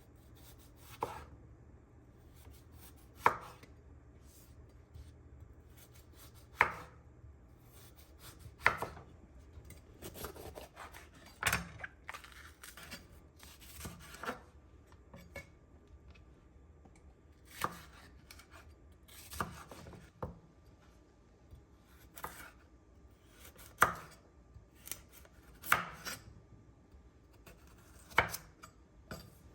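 Knife cutting food on a cutting board: slow, separate sharp knocks roughly every two seconds, with a quicker run of cuts about ten seconds in.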